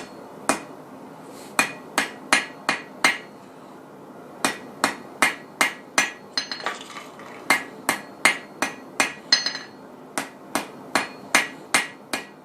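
Hand hammer striking hot steel on an anvil, drawing out the stem of a forged leaf. The blows come in quick runs of about three a second with short pauses, each with a brief metallic ring.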